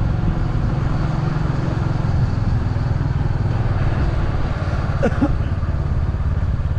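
A road vehicle's engine running steadily while driving, with the even rush of road and wind noise around it.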